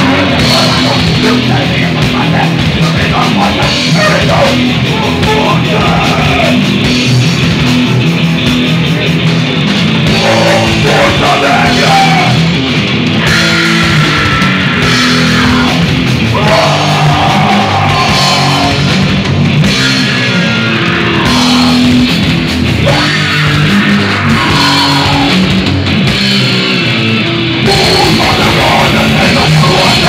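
Black metal band playing live, with distorted electric guitars and a drum kit going at full volume without a break.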